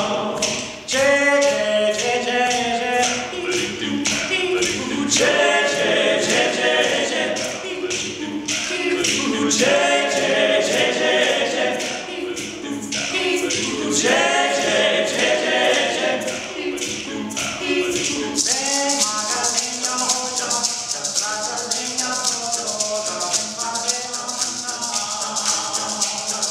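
Male a cappella ensemble singing a samba in close harmony over a shaker keeping a steady rhythm. About eighteen seconds in, the voices drop back and the shaker comes to the fore.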